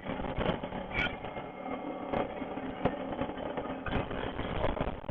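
An off-road vehicle's engine runs steadily at a low hum, with frequent knocks and crackles of wind and handling on the microphone.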